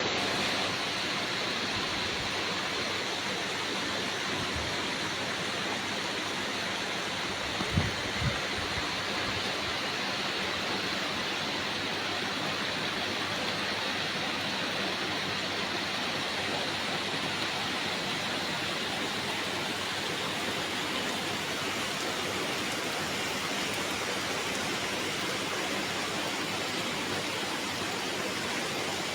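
Steady rain falling, an even hiss without breaks. Two brief low thumps come close together about eight seconds in.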